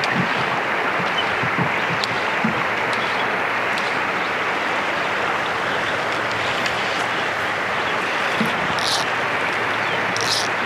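Steady rushing of moving river water, an even hiss with a few faint ticks.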